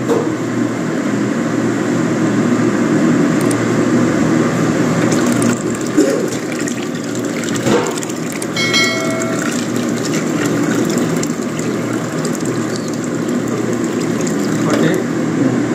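Water pouring steadily from an electric kettle into a steel pot of rice and broth, splashing into the liquid.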